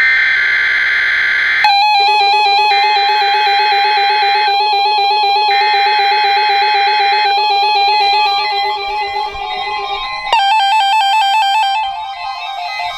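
A brief screech of EAS SAME header data tones for the first second and a half or so, then synthesizer and keyboard music with a wavering melody line, changing about ten seconds in.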